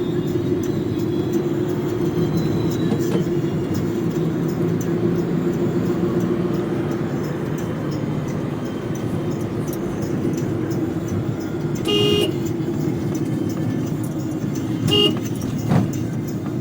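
Inside a car cab on a highway with the windows closed and the AC on: a steady low rumble of engine and road noise. Two short car horn toots sound near the end, the first about half a second long and the second briefer, followed by a brief thump.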